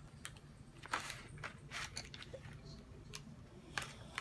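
Faint clicks and short scratchy rustles of coloured pencils being handled and put to a colouring-book page, with a few sharp taps spread about a second apart.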